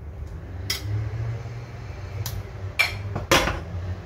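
Metal kitchen tongs clicking and clinking against a frying pan and plate as chicken fillets are set into the sauce: four sharp clicks, the loudest near the end. A low steady hum runs underneath.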